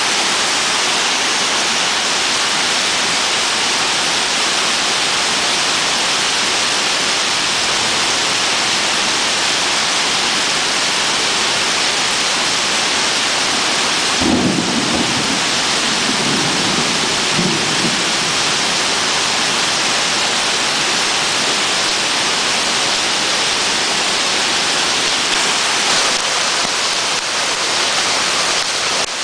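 Heavy thunderstorm downpour hissing steadily, with a roll of thunder rumbling for a few seconds about halfway through.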